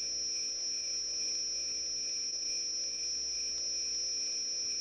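Crickets trilling: one unbroken, steady, high-pitched trill.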